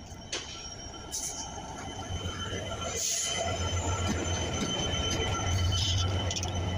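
Diesel locomotive at the head of a passenger train running past close by, its steady engine drone growing louder as it comes alongside. Short clicks and a sharp noise about three seconds in come from the wheels and running gear on the track.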